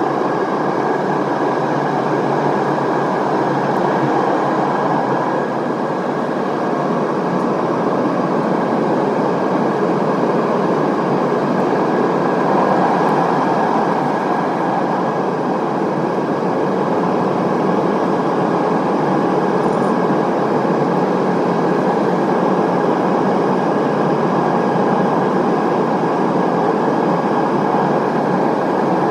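Steady airliner cabin noise inside an Airbus A320neo in flight: an even rush of airflow and engine noise with a thin, steady whine above it.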